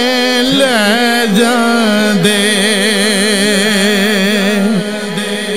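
Male voice singing a long, drawn-out melismatic passage of a Punjabi naat, the held notes wavering with vibrato over a steady drone.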